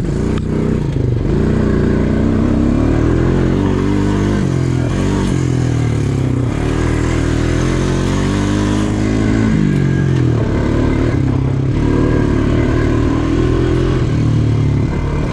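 ATV engine running hard on a trail ride, its pitch climbing and dropping several times as the throttle opens and closes.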